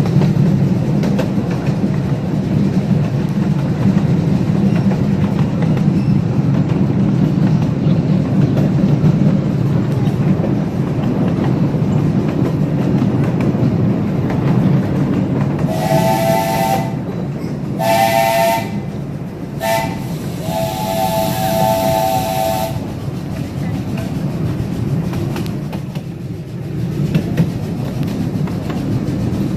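Live steam locomotive's chime whistle sounding four blasts over the steady rumble of the train rolling along the track: a blast of about a second, a shorter one, a very short toot, then a longer blast of about two seconds.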